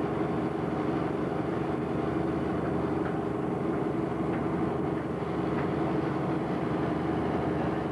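Diesel engine of a large crawler derrick crane running steadily, a constant low hum with no change in pitch.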